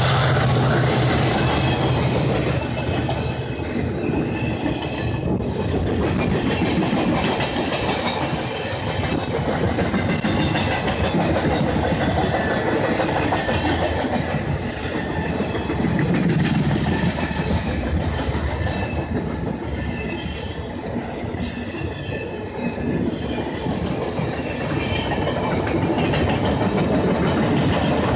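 Freight train of loaded flatcars rolling past close by, steel wheels clattering over the rail joints, with a brief high wheel squeal about three quarters through. The low drone of the trailing EMD SD70ACE diesel locomotive fades out in the first few seconds.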